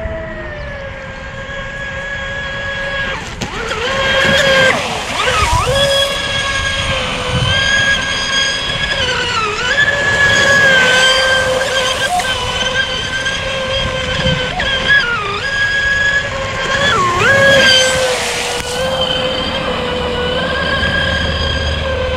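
ProBoat SonicWake 36-inch RC boat's brushless motor whining at high speed, the pitch dipping briefly several times and recovering. Bursts of hiss come in three times.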